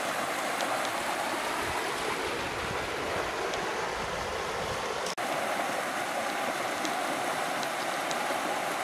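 River rapids rushing over and around boulders: a steady, full rush of white water, with a momentary break about five seconds in.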